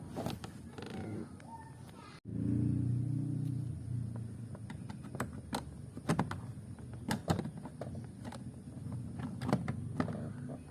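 Irregular light clicks and taps of hand work on a car door, reassembling its handle and trim. A low hum starts after a sudden cut about two seconds in and lasts about two seconds.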